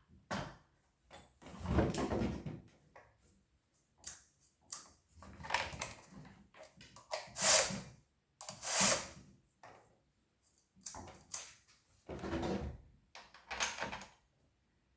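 Irregular knocks, scrapes and rustles of objects being handled, about a dozen separate noises with short quiet gaps between them, in a small room.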